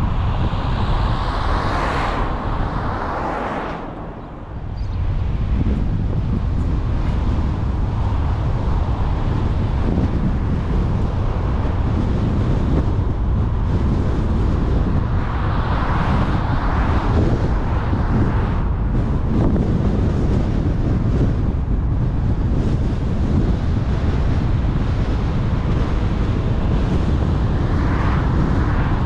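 Car driving along an open road: steady road and tyre noise with wind buffeting the microphone. The noise dips briefly about four seconds in, and swells with a passing hiss as other cars go by, about halfway through and near the end.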